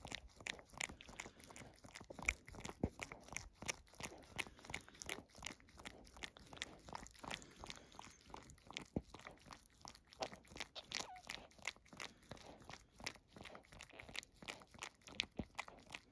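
Mother dog licking her newborn puppy: a steady run of faint, irregular wet licking and smacking clicks, several a second.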